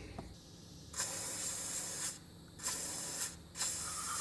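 Aerosol can of silicone spray lubricant hissing out in three short blasts onto a squeaking, non-greasable ATV steering bushing.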